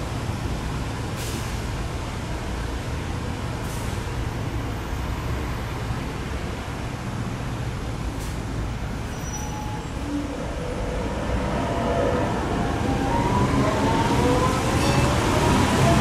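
Steady city traffic rumble that grows louder in the last few seconds as an articulated city bus passes close by, its drivetrain whine rising in pitch in several steps as it pulls away.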